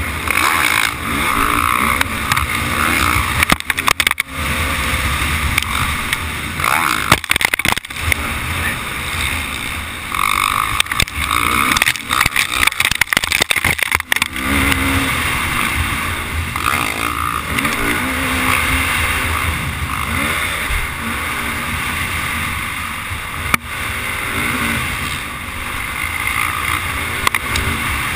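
Dirt bike engine heard from onboard the bike at racing pace, revving up and down with the throttle through the gears, with wind rush; the sound drops out sharply several times.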